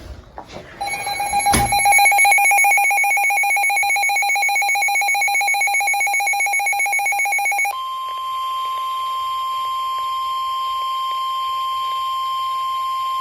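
Weather alert tones: a rapidly pulsing electronic alarm tone starts just under a second in, with a sharp click soon after. About eight seconds in it gives way to a steady, single-pitch tone, the NOAA Weather Radio 1050 Hz warning alarm tone that comes before a warning is read.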